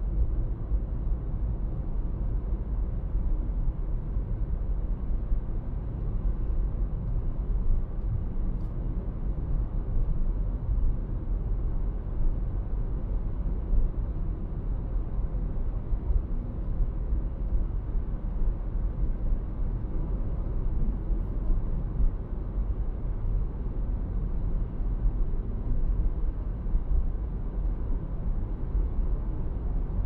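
Car driving along a road: a steady low rumble of engine and road noise.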